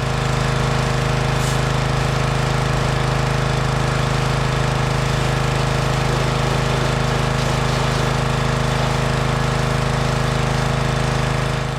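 A motor running steadily with a strong low hum and a fast, even pulsing, starting and stopping abruptly.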